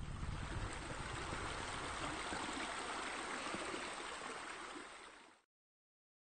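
Steady running, splashing water of a spa spillover pouring into a pool. It fades and then cuts off to silence about five seconds in.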